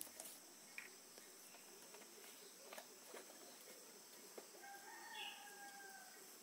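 Near silence with a faint steady high insect hum and a few soft clicks; about five seconds in, one brief faint bird call.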